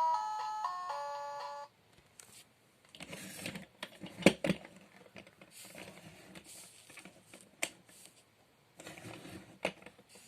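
A Little Tikes interactive musical toy alarm clock plays a simple beeping electronic tune that cuts off suddenly about two seconds in. Scattered clicks and short rustling noises follow, with a few sharper clicks, the loudest about four seconds in.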